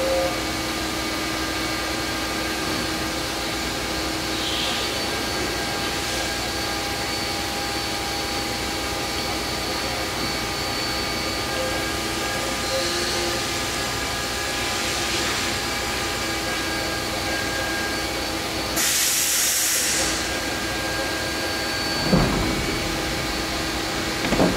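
Fadal VMC4020HT vertical machining center powered up and standing idle: a steady hum with several steady whining tones. A short hiss comes about nineteen seconds in, and two knocks near the end as the enclosure's sliding doors are shut.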